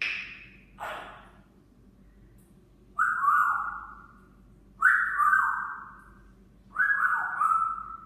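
African grey parrot whistling the same short phrase three times, about two seconds apart, each one stepping down in pitch in two or three steps; two short, rougher sounds come right at the start.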